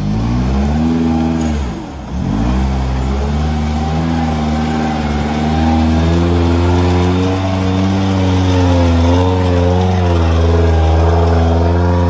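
An off-road 4x4's engine revving under load, its revs rising and falling; the revs drop off briefly about two seconds in, then pick up again and hold high.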